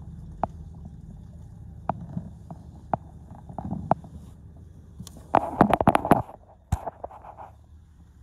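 Handling noise from cleaning a car's footwell carpet with a cloth: scattered sharp clicks and knocks over a low steady hum, then a burst of clattering and rubbing about five to six seconds in.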